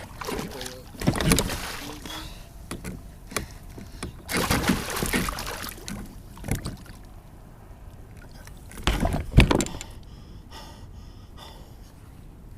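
Water splashing and knocks against a kayak as a large spotted seatrout is brought aboard by hand, in several bursts; the loudest is a sharp thump about nine seconds in.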